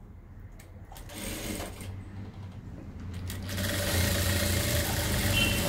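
Industrial lockstitch sewing machine stitching a facing strip onto a blouse neckline: a few short, slow runs at first, then a louder, steady run from about halfway through.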